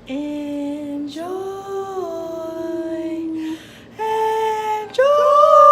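A woman singing four long, held notes in slow phrases, each note sliding gently in pitch; the last one, about five seconds in, is the loudest.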